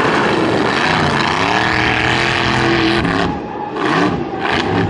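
Formula Offroad buggy's engine revving hard on a steep sand hill climb, its pitch rising and falling with the throttle. A little past three seconds in the engine note drops away twice, briefly, before it picks up again.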